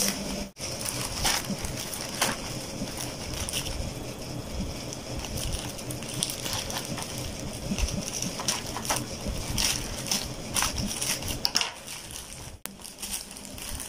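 Plastic courier mailer bag crinkling and rustling as it is handled and torn open by hand, with irregular small crackles and ticks.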